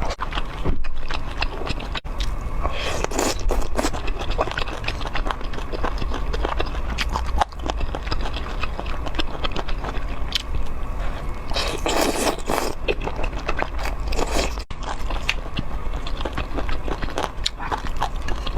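A person eating bobo chicken skewers: irregular crisp crunching bites and wet chewing, with a few louder bites, such as one about twelve seconds in.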